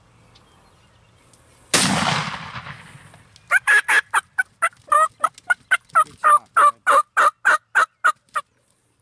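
A single shotgun shot about two seconds in, its report dying away over about a second. It is followed by a wild Merriam's turkey calling in a rapid series of short, sharp notes, about four a second, for some five seconds.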